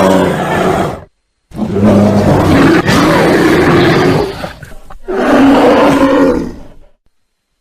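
Bear roaring: loud, rough, growling roars, a short one ending about a second in, then two longer ones, each cut off abruptly by a brief gap of silence.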